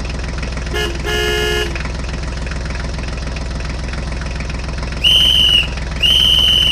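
Cartoon sound effects of a vehicle engine running steadily, with a short horn toot and then a longer one about a second in. Near the end come two loud, high-pitched beeps, each lasting about half a second.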